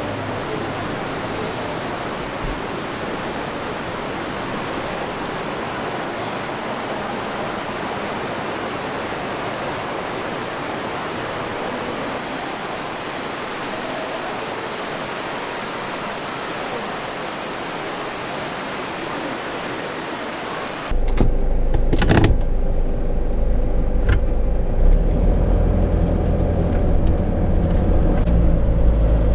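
A steady rushing noise for about twenty seconds, then a sudden switch to the low rumble of a car running, heard from inside the cabin, with a few sharp clicks.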